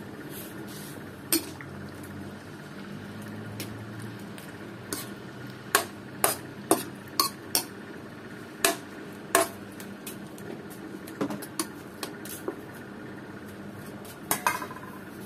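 Metal ladle clinking and knocking against the sides of an aluminium wok while stirring a soupy pork-belly stew, in irregular sharp clinks with a cluster about halfway through and a couple more near the end, over a steady low hum.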